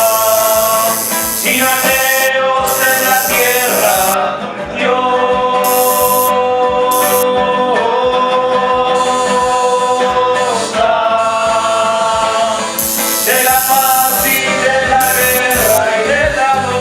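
A band's song playing: long held melody notes over guitar and a steady drum beat.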